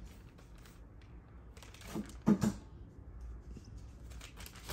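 Kraft-paper mailer rustling and crinkling under a kitten playing on it, in scattered light strokes, with one short louder burst about two seconds in.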